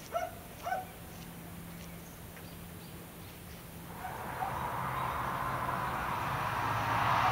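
Two short calls right at the start, then the splashing of an indoor rock waterfall into a pond, growing steadily louder from about halfway.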